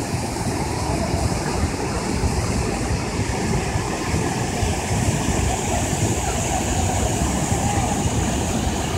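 River water pouring over a low weir and rocky cascades, rushing steadily.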